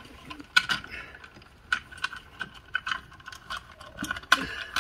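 Blue plastic old-work electrical box and the cables through it being handled: irregular clicks, ticks and light plastic knocks with rustling, as cable is pulled through the box's knockouts. The sharpest click comes about half a second in and another near the end.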